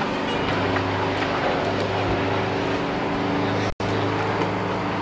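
A large engine running steadily: a constant low hum under a dense wash of noise, cutting out completely for an instant about three-quarters of the way through.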